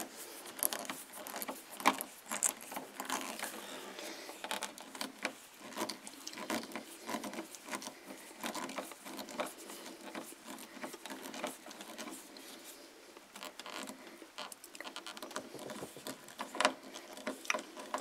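Hand screwdriver turning the bottom mounting screw of a self-contained mobile home light switch, giving soft irregular clicks and scratches with a sharper click about two seconds in. The screw is tightening, drawing the switch's mounting tab up against the back of the sheetrock.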